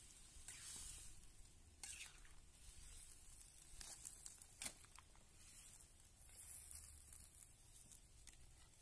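Faint sizzling of pumpkin chunks simmering in coconut-milk sauce in a wok over a wood fire, with a few light clicks from a wooden spatula stirring.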